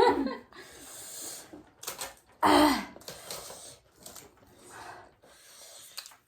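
A person breathing noisily through the nose and mouth while eating, with a louder breathy exhale about two and a half seconds in and a few faint clicks.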